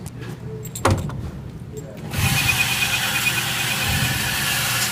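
A sharp knock about a second in, then an electric motor whirring steadily with a faint high whine from about two seconds in: the range's motorized target carrier running the target back.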